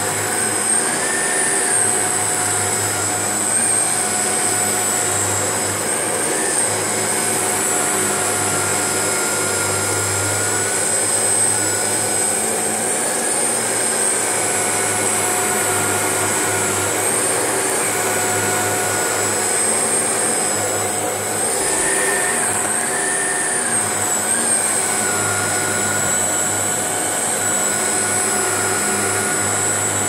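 Shark NV801UK upright vacuum cleaner running on carpet: a steady motor hum and high whine that rise briefly in pitch a few times as the floor head is worked back and forth.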